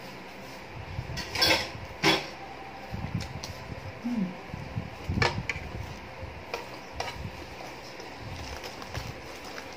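Close-up eating sounds: chewing shawarma, with a few sharp clinks of tableware being handled, loudest about one and a half and two seconds in and again about five seconds in, and smaller clicks between.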